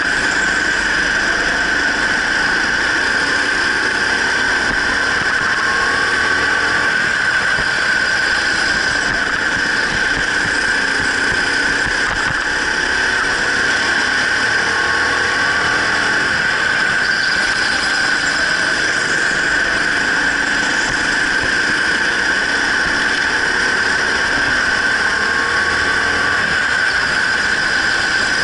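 Racing go-kart running laps: a loud, steady high-pitched whine, with a fainter drive note rising and falling beneath it.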